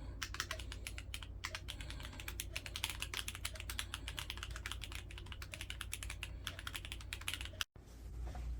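Fast, continuous typing on a Keychron Q1 custom mechanical keyboard, a dense clatter of key clicks several a second over a low steady hum, with the sound cutting out for an instant near the end.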